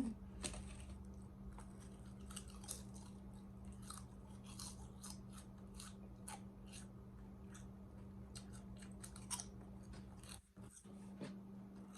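A person chewing a bite of BLT sandwich with onion: irregular crunchy chewing and mouth clicks, over a steady low hum.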